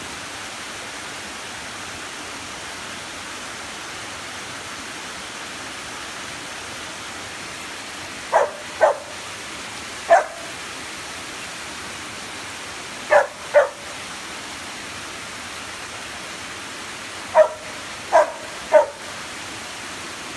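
Samoyed barking, eight short high barks in groups of two or three starting about eight seconds in, over the steady rush of a creek and small waterfall.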